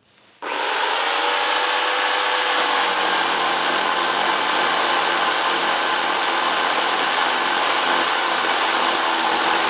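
Corded Harbor Freight Portland electric chainsaw starting about half a second in and then running steadily as its chain cuts through a pecan limb.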